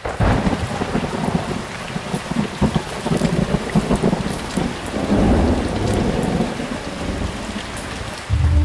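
Rain falling with thunder rumbling, starting suddenly after a moment of silence.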